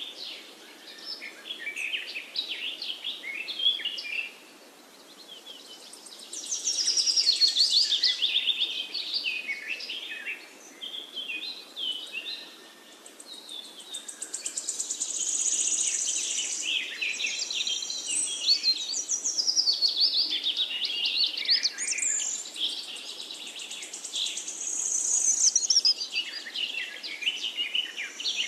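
Songbirds singing and chirping: overlapping high-pitched calls and rapid trills, quieter for a couple of seconds about four seconds in.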